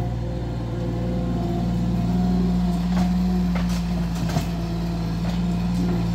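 Bobcat skid-steer loader's engine running steadily under load while it moves and turns with a bucket of soil, revving up about two seconds in. A few short knocks come through near the middle.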